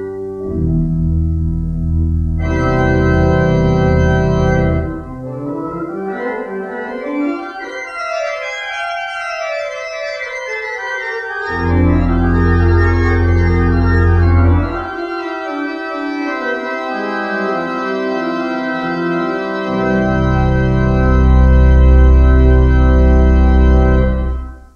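Organ music: full held chords with deep bass notes that drop out and come back a few times, stopping right at the end.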